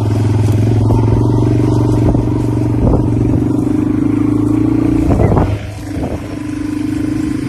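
Motor vehicle engine running at a steady low drive speed, a constant hum that drops briefly about five and a half seconds in before carrying on.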